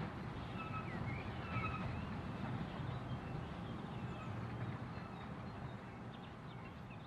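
Birds chirping, most often in the first couple of seconds, over a steady low rumble that slowly fades.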